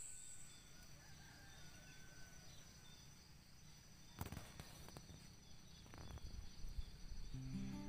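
Faint night insects, crickets among them, chirping steadily in high pitched pulsing tones, with a few soft knocks about four and six seconds in. Acoustic guitar music begins just before the end.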